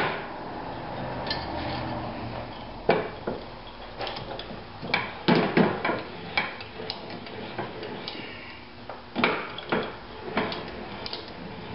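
Irregular metal clinks and knocks as a Briggs & Stratton flywheel with a new aluminum starter ring gear is handled in a steel bench vise and held with a screwdriver through the gear. The loudest clanks come about five seconds in.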